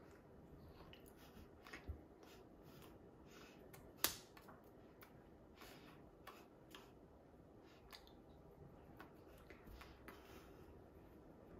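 Near silence: faint room tone with scattered small clicks and taps, and one sharper click about four seconds in.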